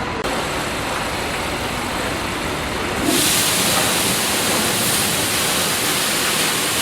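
Automatic car wash machine running with a low rumble; about three seconds in, a loud, steady hiss of water spray starts.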